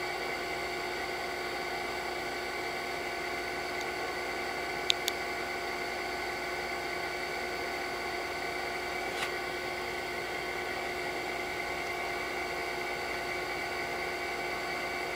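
A steady, high electrical whine made of several held tones. Two quick sharp clicks come about five seconds in and a fainter one about nine seconds in: presses on the BlackBerry's trackpad as a bookmark is selected and the page starts loading.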